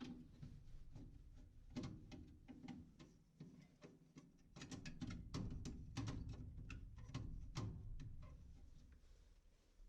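Irregular clicks and light metallic knocks from hands and tools working on a gas furnace's burner assembly, heaviest midway through.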